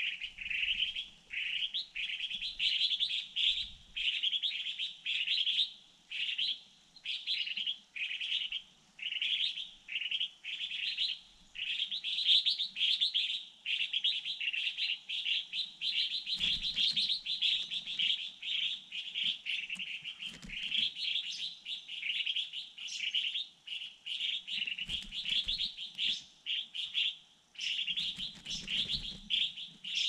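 Small songbird giving rapid, high, repeated chirps, about two or three a second, with hardly a pause: alarm calling at a raptor on its nest.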